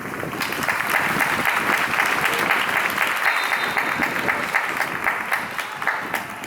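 Stadium crowd applauding, the clapping swelling in about half a second in and dying away near the end.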